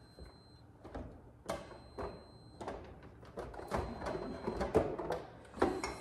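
Jars, bottles and food containers knocking and clinking as they are moved and set down on refrigerator shelves, a series of irregular knocks that bunch together toward the middle. A faint high tone comes and goes behind them.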